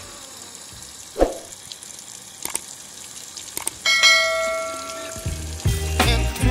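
Water pouring from a wooden spout into a ceramic basin, a steady light splashing. About four seconds in, a single bell-like ding rings and fades, with a couple of short clicks just before it. Music comes back in near the end.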